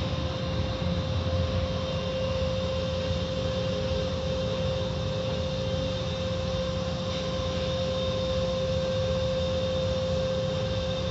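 Water cascading from an automatic car wash's overhead curtain onto the windshield and roof, heard from inside the car: a steady rushing wash with a constant pitched hum underneath.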